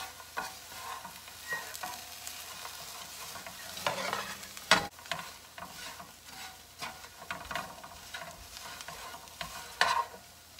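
Long chopsticks scraping and knocking against a nonstick frying pan as shredded coconut is tossed quickly in drying sugar syrup, with a light frying sizzle. The coconut candy is near the end of cooking, when the sugar is almost dry and the stirring must be fast and constant. The sharpest knocks come about five seconds in and again near the end.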